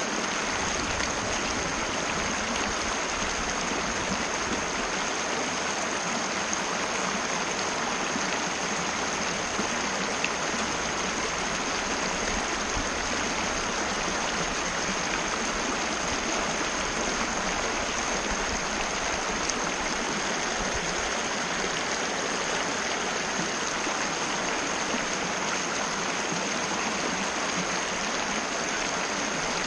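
Mountain river rushing steadily over rocks, an even unbroken rush of water with a faint steady high-pitched tone running through it.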